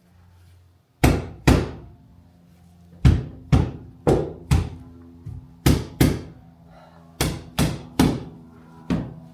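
Repeated sharp knocks, mostly in quick pairs, about a dozen in all starting about a second in, each with a short ringing decay: the rear windscreen's chrome trim being knocked home into its rubber seal.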